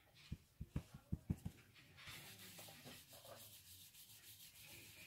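Natural-bristle stencil brush stroked over a stencil on a tabletop, a faint dry scrubbing. A quick run of about six soft thuds comes in the first second and a half.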